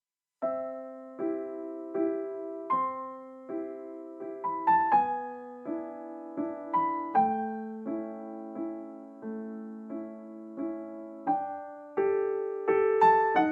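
Background piano music: a slow tune of struck chords, a new chord about every three-quarters of a second, each ringing out and fading before the next, starting about half a second in.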